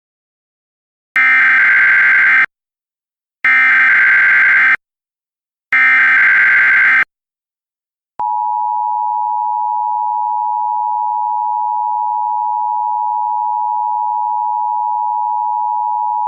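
Emergency Alert System signalling: three short bursts of warbling digital data tones about a second apart, then the steady two-tone EAS attention signal. The attention signal starts about 8 seconds in and holds unbroken.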